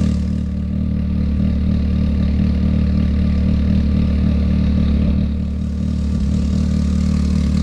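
Can-Am Maverick X3's turbocharged three-cylinder engine idling steadily through a freshly fitted aftermarket exhaust, just after a start-up.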